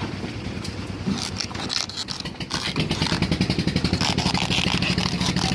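Engine of a concrete mixer machine running, with scraping and clattering in the first half; about three seconds in it gets louder and settles into a fast, steady chug.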